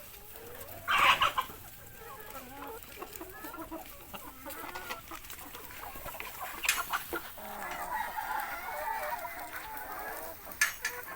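Free-range chickens clucking, with a loud squawking call about a second in and a few sharp clicks later.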